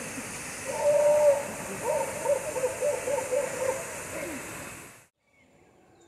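Howler monkeys calling in repeated wavering howls over the steady rush of a waterfall; both cut off suddenly about five seconds in.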